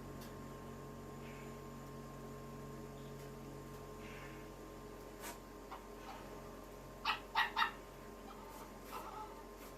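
An animal giving three short, quick, high calls about seven seconds in, over a steady low hum, with a couple of faint clicks before them.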